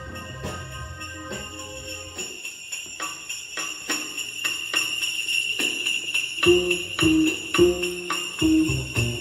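Upbeat music with sleigh bells jingling throughout and a steady beat, playing from a single 8-inch Electro-Voice SP8B coaxial driver in a Gough speaker enclosure. A bass line comes in about two-thirds of the way through.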